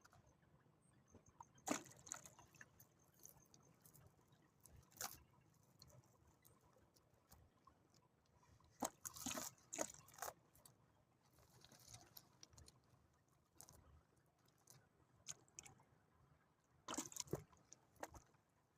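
Faint, scattered splashes and handling noises from river net fishing: a few short wet sloshes and clicks several seconds apart over quiet background.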